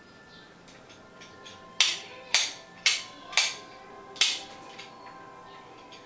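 Five sharp clicks from a plastic wall light switch being handled and fitted back into its box, spaced about half a second apart with a slightly longer gap before the last.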